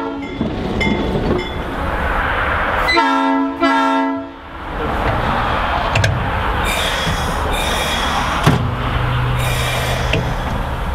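Diesel locomotive air horn sounding a chord in two short blasts about three seconds in, over the steady noise of a running locomotive. From about five seconds on the locomotive's running noise carries on steadily, with a low steady hum joining near the end.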